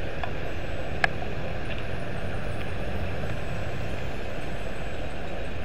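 Steady noise of a heavy downpour of rain, with a low rumble underneath and one sharp click about a second in.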